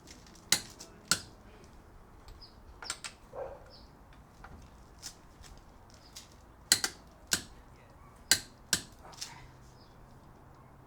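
Sharp metallic clicks and knocks, about a dozen, some in quick pairs, from click-type torque wrenches being used on a car's wheel lug nuts.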